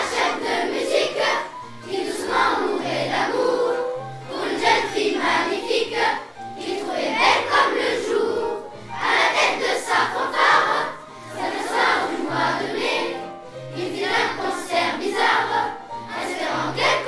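Children's choir singing a French song in phrases of two to three seconds, over an accompaniment with a steady bass line.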